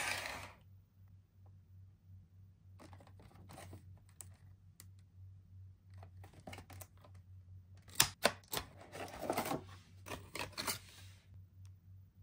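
Toy packaging being handled and opened: scattered clicks, taps and short rustles of cardboard and plastic, with a sharp click about eight seconds in and a longer rustle after it, over a steady low hum.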